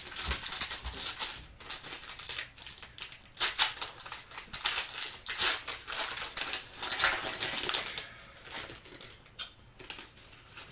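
Trading card pack wrapper being torn open and crinkled by hand, a dense crackling that dies down about eight seconds in as the cards are slid out.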